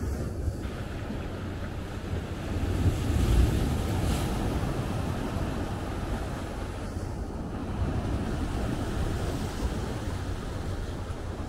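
Wind buffeting the microphone over a steady wash of sea surf, a low rumbling noise that swells briefly about three seconds in.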